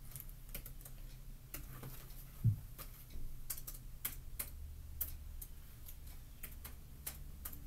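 Light, irregular keystrokes on a laptop keyboard, typing in a sign-in, with a soft thump about two and a half seconds in.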